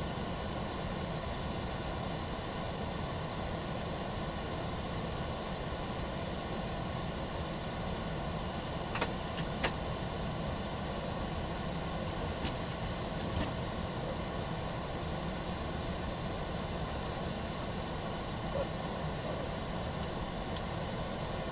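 Steady flight-deck noise of a Boeing 737-800 descending on approach: an even rush of air and engine hum with faint steady tones running through it. A few faint clicks come about halfway through and again near the end.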